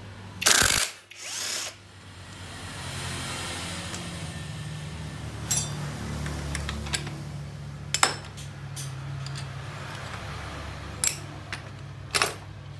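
Cordless drill spinning a socket on the clutch-centre nut of a Honda Tiger engine, in two short loud bursts near the start. After that a steady low hum runs underneath, with a few sharp metallic clinks as clutch parts are lifted off.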